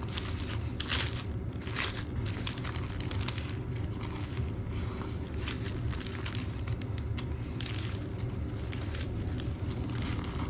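Paper wrapper around a sandwich crinkling and rustling in irregular bursts as it is handled and unwrapped, over a steady low hum.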